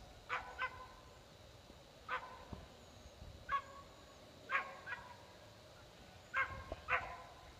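A dog barking, about eight short, fairly high barks spaced out singly and in quick pairs.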